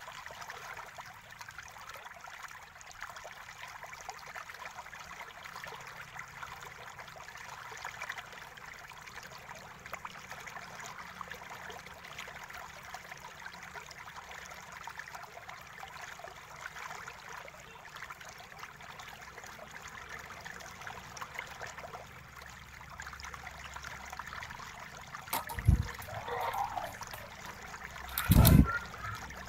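Steady background hiss, with two dull knocks near the end as the laptop's plastic case parts are handled.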